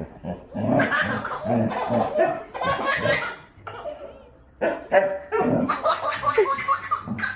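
A dog barking and people laughing.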